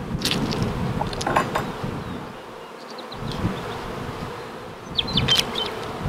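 Honey bees buzzing steadily around an open horizontal beehive. Sharp clicks and scrapes of wooden top bars being pushed into place come a moment in, at about a second in, and again about five seconds in.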